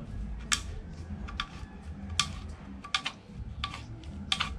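A knife blade scraping and trimming the end of a PVC pipe, in short sharp strokes about every three-quarters of a second.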